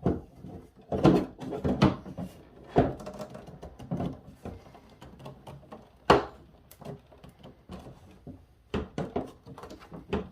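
Hard plastic toy parts knocking and clicking as a piece is pushed and worked with force onto a post that it will not easily fit. The knocks are irregular, with the sharpest about six seconds in.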